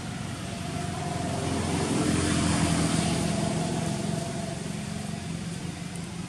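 A motor vehicle passing, its engine and road noise swelling to the loudest about two to three seconds in, then fading away.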